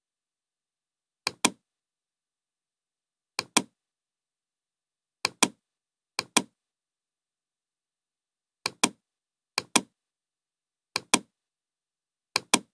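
Computer mouse button clicked eight times at irregular intervals of about one to two and a half seconds, with silence between. Each click is a press followed by a slightly louder release about a fifth of a second later.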